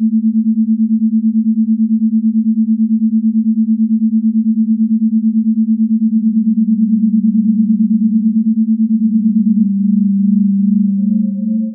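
Electronic drone soundtrack: a steady low synthesized tone pulsing quickly several times a second. A second, lower tone joins about halfway through, and a higher held tone enters near the end.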